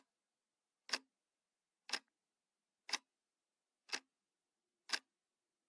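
Ticking clock, six short ticks about a second apart.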